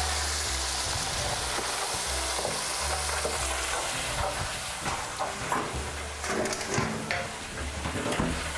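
Breaded walleye fillets frying in hot oil, a steady sizzle, with a few clicks and scrapes in the second half.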